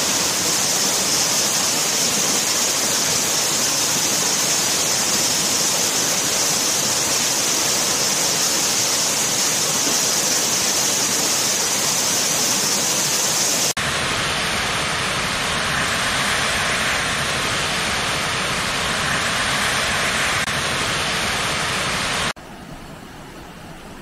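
Waterfall: a steady rush of water falling over rock. About halfway through, the sound cuts abruptly to a different rushing-water recording. Near the end it drops to the quieter flow of a shallow rocky stream.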